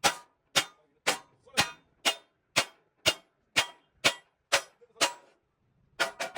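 Hammer striking metal in a steady rhythm, about two ringing blows a second, as in beating out damaged truck bodywork. The blows stop for about a second near the end, then two more follow.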